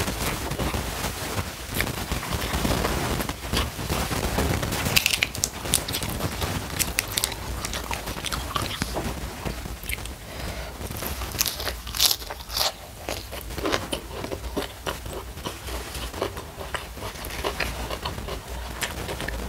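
Close-miked chewing and crunching of rice, fried salted fish and raw vegetables eaten by hand, with a steady run of wet mouth clicks and crisp crunches. The crunches are loudest a little past the middle.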